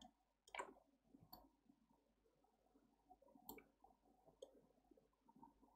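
Near silence: room tone with a few faint, separate computer mouse clicks.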